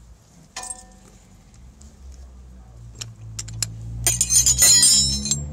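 Steel combination wrenches clinking on a brake caliper bolt, with scattered sharp clicks, then a loud metallic jangle of tools for about a second near the end. Under it a low hum rises slowly in pitch near the end.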